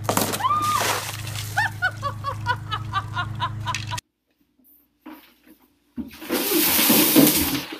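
Water dumped from a plastic tub splashes briefly near the start over a low steady hum, followed by a run of short, high chirping cries. After a sudden cut to silence, water poured from a cooler splashes loudly over a person in a small bathroom for about the last two seconds.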